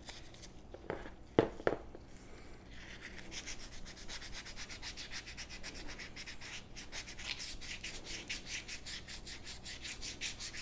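320-grit sandpaper rubbed by hand in fast back-and-forth strokes along the seam between a revolver's two wooden grip panels, knocking down the ridge where they meet. A few sharp handling clicks come before the sanding settles in, about two and a half seconds in.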